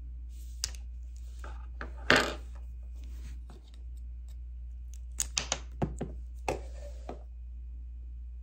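Small plastic clicks and knocks as a car key fob's case is handled and a knife tip pries out its CR2032 coin-cell battery. The loudest is a single knock about two seconds in, followed by a quick run of sharp small clicks between about five and seven seconds in.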